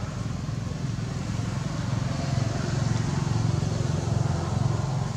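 A motor vehicle engine running off-screen: a steady low hum that grows louder about two seconds in.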